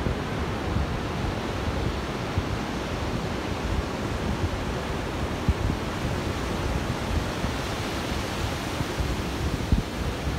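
Ocean surf breaking and washing up a sandy beach, a steady rushing, with wind rumbling unevenly on the microphone.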